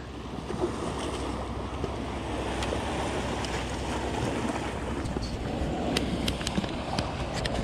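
Sea surf washing over a rocky shore, a steady rushing noise, with wind buffeting the microphone. A few short clicks come near the end.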